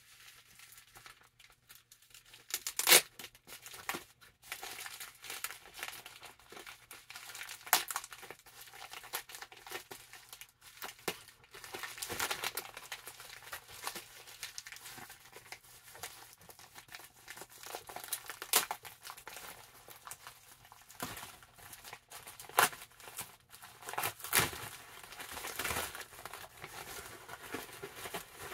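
Action figure packaging being opened by hand: plastic and cardboard crinkling and tearing in irregular handling noises, with sharp snaps now and then, the loudest about three seconds in.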